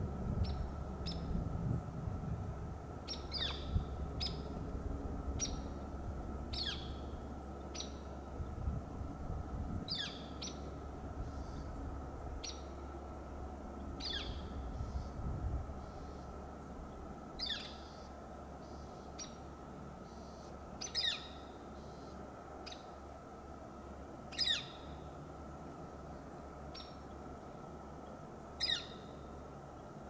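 Juvenile Northern Flicker (red-shafted) giving its single, downward-slurred "kyeer" call over and over, about every three to four seconds, with shorter sharp high notes in between.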